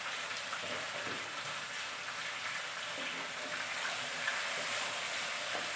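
Chicken pieces sizzling steadily in a non-stick frying pan, with a spatula turning them now and then. The juices have cooked down, so the chicken is now frying in the oil that has separated out.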